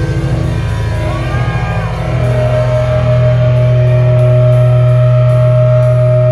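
Live band playing loud, distorted rock; about two seconds in, a chord is held and rings out, then cuts off suddenly.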